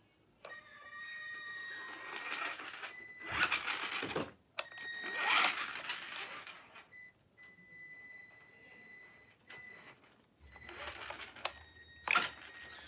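A radio-controlled Traxxas Rustler's brushed Titan 12-turn electric motor and drivetrain whining under throttle. It comes in several louder surges as the car is driven, with a steady high-pitched whine between them.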